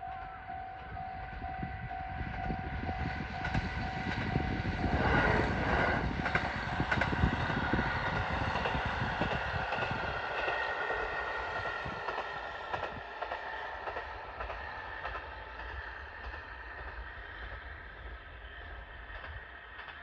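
JR Hokkaido KiHa 40 single-car diesel railcar passing by, the engine and the wheels on the rails loudest about five to eight seconds in, then fading away. For the first few seconds a steady tone pulses several times a second.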